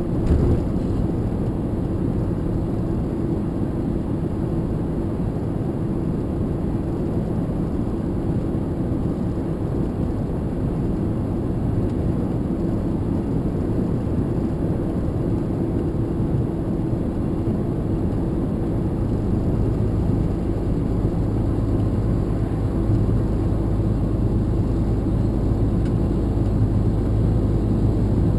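Lorry's engine and road noise heard from inside the cab while driving, a steady drone with a short bump right at the start. The low engine note grows stronger about two-thirds of the way through.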